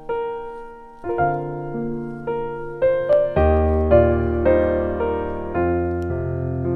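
Background piano music: struck notes and chords that ring and fade, with deeper bass notes joining a little over three seconds in.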